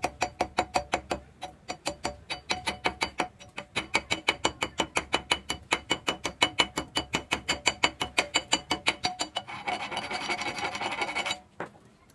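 Slag being scraped off a fresh stick-weld bead with a hand tool: fast, even metal-on-metal scraping strokes, about five a second. Near the end it turns to a denser, steadier scrub, then stops suddenly.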